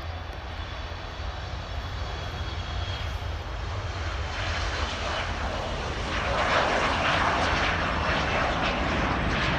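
Jet noise from a KLM Embraer 175's twin turbofan engines at takeoff power as it takes off, a broad rushing sound that grows steadily louder, most clearly over the second half.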